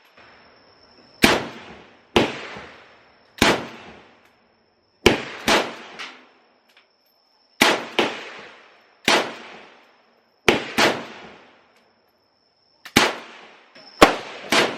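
Gunfire from a shooting range: about a dozen single shots at irregular intervals, some in quick pairs, each a sharp crack that echoes away. A steady high insect whine runs underneath.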